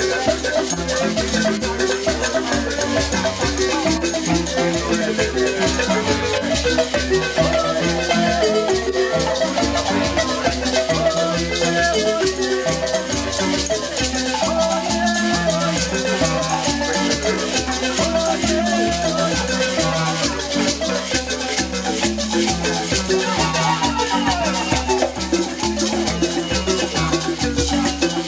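African marimbas played as an ensemble in an upbeat, steady groove, with a rattling shaker part over a constant beat and a hand drum in the mix.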